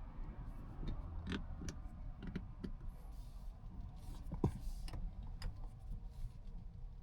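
Low road and tyre rumble inside a Mazda 6e's cabin while driving, with scattered light clicks at irregular intervals.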